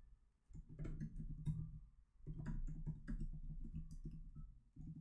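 Typing on a computer keyboard: two runs of quick key clicks, the first about half a second in and the second from just after two seconds.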